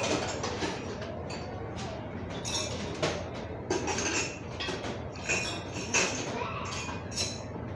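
A metal fork and spoon clink and scrape against a bowl of noodle soup while noodles are twirled and lifted. The clinks are short, sharp and irregular, about one every half second to second.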